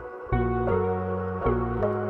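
Background music: soft ambient music, a few notes struck in turn over a sustained bass.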